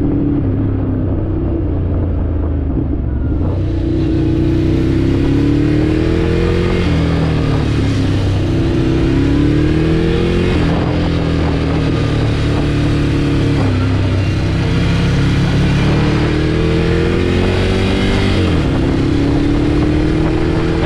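Ducati Scrambler Desert Sled's 803 cc air-cooled L-twin engine on the move. Its pitch climbs steadily, then drops sharply, about four times over. A rushing hiss of wind joins about three and a half seconds in.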